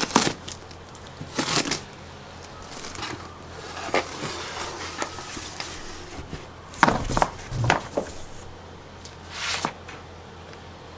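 Cardboard box and paper packaging being handled and opened: a string of short rustles, scrapes and knocks, the loudest near the start and about seven seconds in, over a steady low hum.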